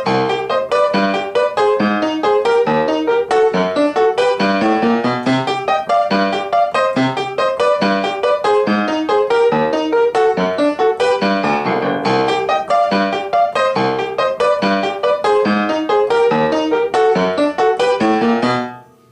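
Piano-led instrumental music with a busy, quick-moving accompaniment of rapidly struck notes; it cuts off sharply near the end.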